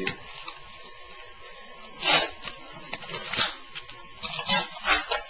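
Outer case being pulled and pried off a disposable camera: several short scraping, rustling handling noises about two seconds in, again a second later and twice near the end.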